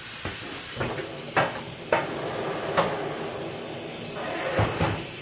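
Sharp knocks and clatters of tools and a tire being worked at a tire changing machine: about five in the first three seconds and two deeper thumps near the end, with a faint high hiss that stops about a second in.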